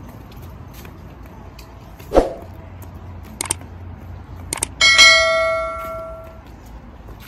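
Subscribe-button sound effect: a short thud about two seconds in, then a few sharp mouse clicks, then a single notification-bell ding that rings out for about a second and a half.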